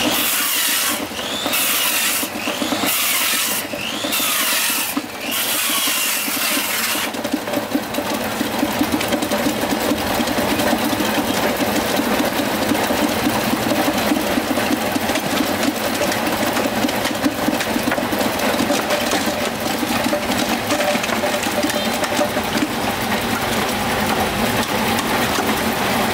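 A small motor running steadily. For the first seven seconds, loud spurts of hissing cut in and out over it.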